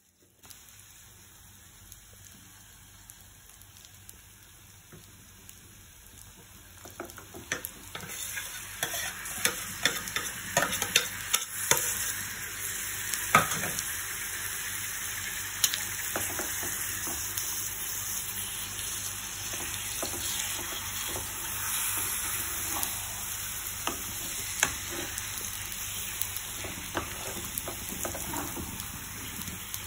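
Food frying and sizzling in a pan while it is stirred, with frequent clicks and scrapes of a utensil against the pan. The sizzle gets markedly louder about seven seconds in and stays steady.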